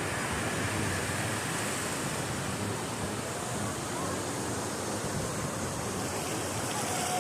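Ocean surf washing onto a sandy beach: a steady, even rush of noise with no single wave standing out.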